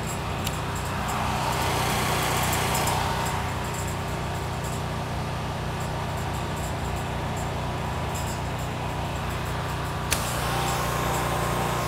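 Pressure washer's engine and pump running steadily in bypass while the trigger is released. About ten seconds in there is a click, then the machine's note changes as the trigger is pulled and the pump comes under load, spraying through a size 9 nozzle.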